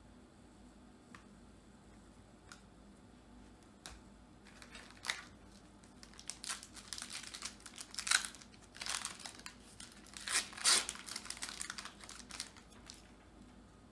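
Trading-card pack wrapper crinkling and tearing as a pack is opened by hand, in a run of crackly bursts starting about four seconds in and loudest in the middle, with a few faint clicks of cards being handled before it.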